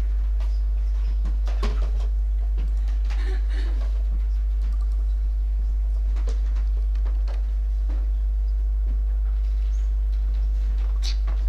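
A steady low hum, the loudest thing throughout, with faint scattered clicks, knocks and rustles over it and a slightly busier patch near the end.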